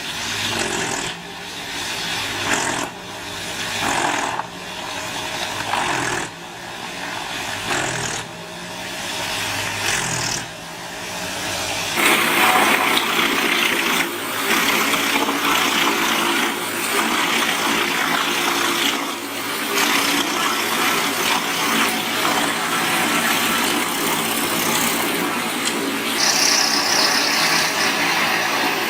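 Large wood chipper running, its sound surging in repeated swells every second or two as material is fed in. About twelve seconds in, it cuts abruptly to a denser, steady machine noise that holds to the end.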